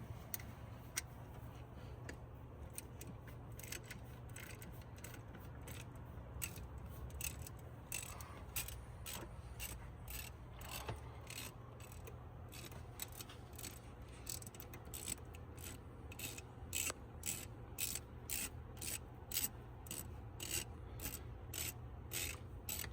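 Hand socket ratchet clicking in short repeated runs as valve cover bolts are worked loose, with a steady low hum underneath.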